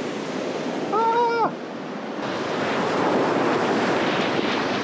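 Ocean surf washing onto the beach, with wind buffeting the microphone. A brief pitched note sounds about a second in.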